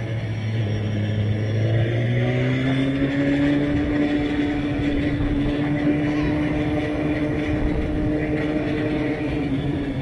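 BMW S1000RR inline-four engine running under way. Its pitch climbs about two seconds in as it accelerates, then holds steady, over a constant rush of wind and road noise.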